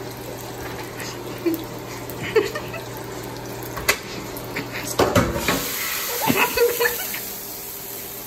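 Frying pan handled and set down into a stainless-steel sink: a few light knocks, then a cluster of metal clatter about five seconds in, with a steady hiss from then on.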